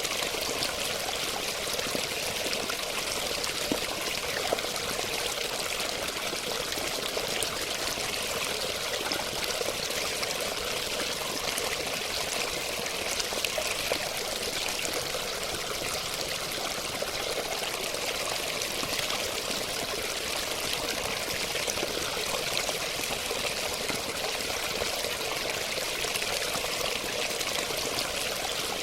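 Flowing water splashing steadily, an even rushing hiss with fine splashes and no change throughout.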